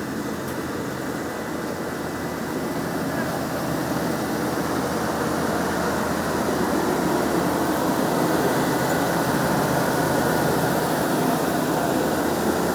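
Road-works machinery engines running: a steady rumble that slowly grows louder.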